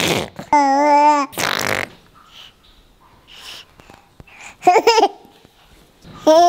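A baby cooing and laughing. A couple of breathy bursts come in the first two seconds around one drawn-out high coo, then short giggling squeals about five and six seconds in.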